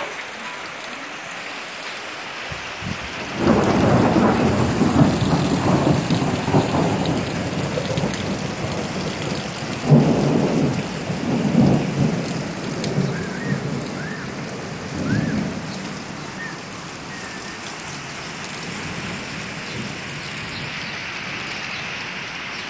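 Steady rain with thunder. A long rumble rolls in about three seconds in, a sharper clap comes about ten seconds in, and weaker rumbles follow before it settles back to the rain alone.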